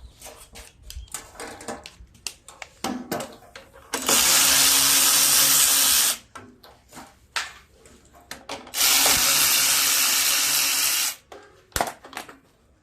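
A power drill runs twice for about two seconds each, with a steady motor whine. It is driving a socket on an extension to back out the 8 mm bolts of a tiller's plastic cover. Clicks and rattles of the tool, socket and bolts come between the two runs.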